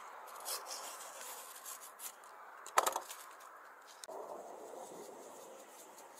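Paper seed packets rustling and scraping as one is slit open with a snap-off utility knife, with one sharp knock about three seconds in.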